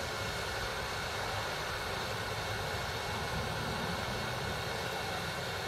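Hot air tool blowing steadily, a constant rushing hiss of air from its nozzle as it melts hot melt glue around a capacitor on a circuit board.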